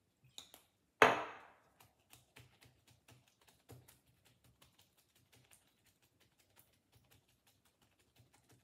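A glass sauce bottle set down with a sharp knock on the stone countertop about a second in. It is followed by a run of small, quick, irregular taps and pats as gloved hands beat Worcestershire sauce down into raw ribeye steaks on a wooden cutting board.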